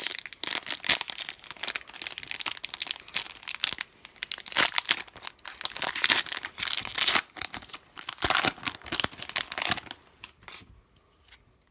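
Foil wrapper of a Panini Contenders football card pack crinkling and tearing as it is pulled open by hand, in irregular crackling bursts that stop about ten seconds in.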